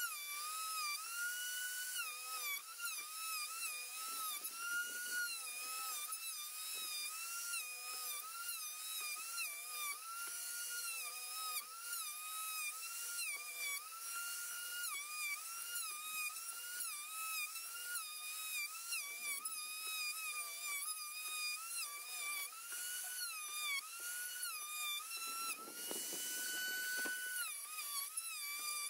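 Handheld router running at high speed as it surfaces a board in a sled. Its whine dips in pitch and recovers again and again as the bit bites into the wood, with a rougher, louder stretch of cutting near the end.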